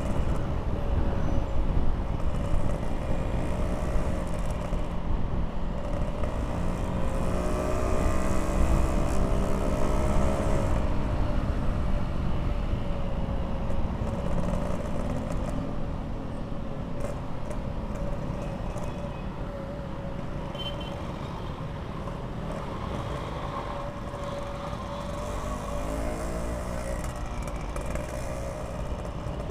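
Yamaha RX-King two-stroke motorcycle engine running while riding, its pitch rising and falling with the throttle over a steady rumble of wind and road noise. It is louder in the first half and eases off later.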